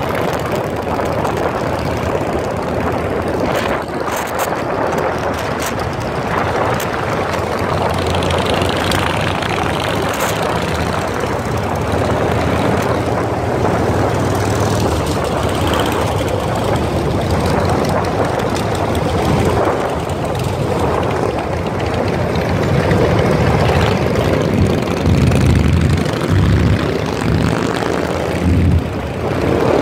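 Engines of a group of cruiser motorcycles riding together, running steadily and getting louder over the last few seconds.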